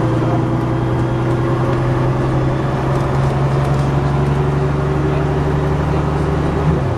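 MCW Metrobus's Gardner diesel engine running at a steady pitch, with a brief jump in pitch near the end.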